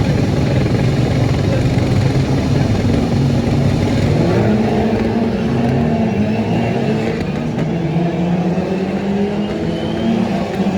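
Several British Touring Car Championship race cars' engines running together, several notes overlapping. About midway, some notes rise and fall as engines rev.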